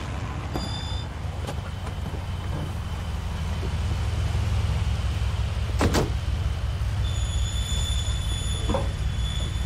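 Antonov An-2 biplane's radial piston engine running at low power as the plane rolls across a grass field, a steady low rumble. A sharp knock sounds about six seconds in.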